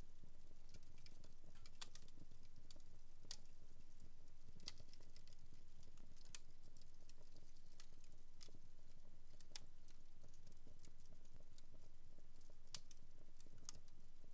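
Wood fire in a home fireplace crackling, with irregular sharp pops and snaps over a low steady hum.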